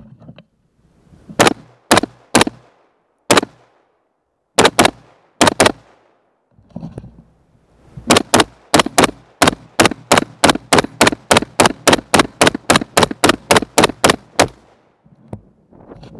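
AR-15 rifle with a 16-inch, midlength gas-piston upper firing semi-automatic. It fires a few single shots and quick pairs, then a long rapid string of about two dozen shots at roughly four a second.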